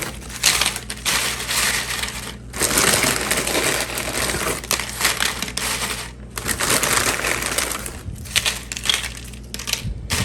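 Tortilla chips crackling and rustling as they are spread out across a baking pan, in several bursts with short pauses between them.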